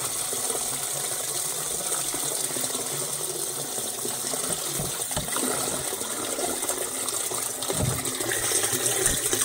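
Dirty pond water pouring and splashing from a tipped pond-filter bucket onto a drain grate, a steady wash with a few faint knocks, growing heavier near the end as the bucket tips further.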